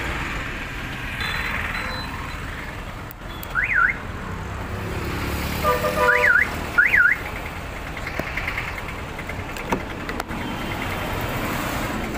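Car central-locking siren chirping as the remote key fob is pressed: one short warbling chirp about four seconds in, then a brief steady beep and two more chirps around six to seven seconds. It is the lock confirmation sound, working again now that the buzzer has been rewired through a relay.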